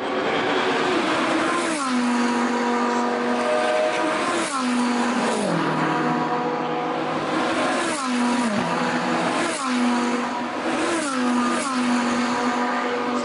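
Rally car engine under hard driving, its pitch dropping sharply and then holding, again and again about every one to two seconds.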